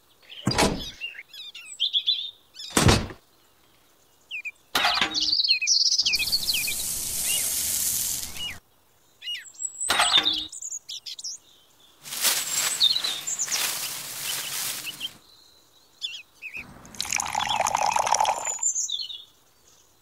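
Birds chirping throughout, over handling of small toy parts: several sharp clicks as pieces are set down, and three rushes of a few seconds each that fit dry cement powder being poured.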